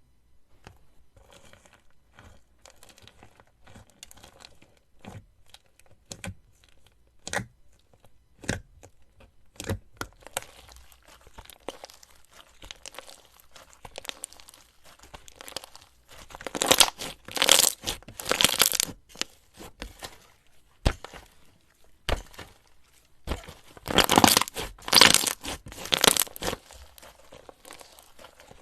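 Slime being crushed and squeezed, giving crunchy crackling sounds: scattered single crackles at first, then two longer, louder runs of dense crackling in the second half.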